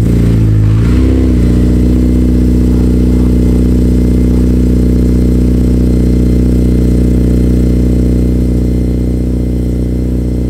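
Honda Civic Si's 2.0-litre four-cylinder engine just after a cold start, heard at the exhaust tip. The revs dip and flare in the first second or so, then it settles into a steady fast cold idle that eases a little lower near the end.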